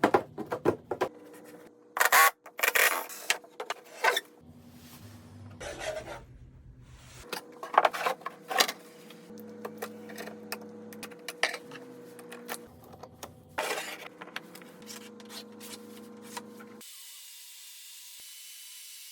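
Hand woodworking on an old drawer: a series of sharp knocks and short bursts of scraping and rubbing on wood, over faint steady tones.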